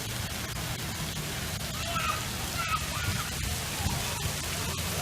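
Steady hiss of running, splashing water, with faint voices in the background.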